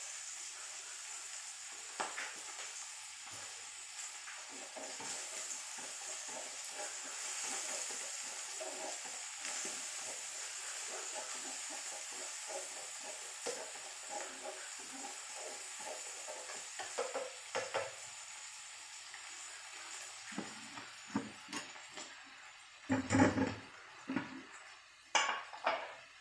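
Small river clam meat stir-frying with shallots in oil in a frying pan, sizzling while chopsticks stir and scrape it, the sizzle dying down over the last several seconds. Near the end come a few clatters of kitchenware, the loudest a heavy knock.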